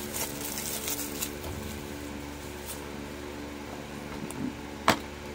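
Plastic DVD case being handled, with a few faint ticks and then one sharp click near the end as the case snaps open, over a steady low hum.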